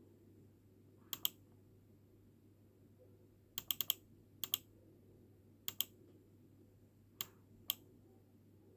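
Sharp clicks like mouse-button clicks, coming from a desktop PC: a pair about a second in, a quick run of four near the middle, then more pairs and single clicks, over a steady low hum. The clicking is an unexplained sound the owner takes for a fault in the PC.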